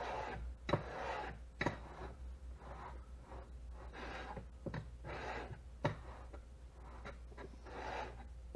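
Shopsmith jointer blades held in a wooden jig, rubbed back and forth on a wetted 220-grit diamond sharpening stone: a gritty rasping scrape with each stroke, about one stroke a second, and an occasional sharp knock. This is the coarse first grind of the dull blades, done with light pressure.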